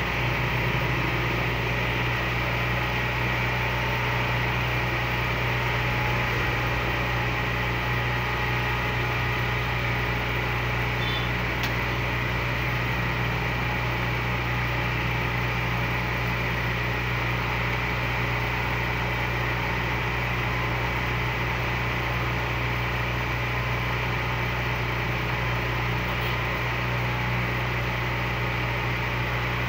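Steady, unchanging low mechanical hum.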